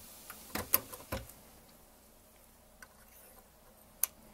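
Light metallic clicks and taps from handling the break-open action of a Thompson Center G2 frame and .45-70 Contender barrel: a few quick clicks about half a second to a second in, then one sharp click near the end as a brass cartridge goes into the chamber.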